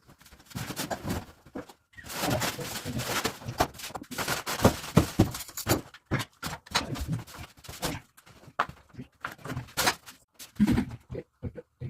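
Rustling and scattered knocks and clatter as the parts of a flat-pack sink vanity cabinet are unpacked and handled. The rustling is densest in the first half, with separate knocks after it.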